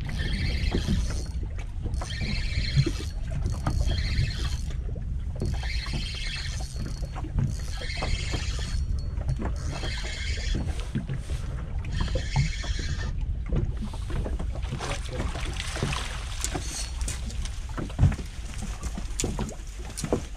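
Wind on the microphone and water around a small fishing boat, with a rasping hiss repeating about every second and a half for the first dozen seconds, then scattered knocks and one sharp thump near the end.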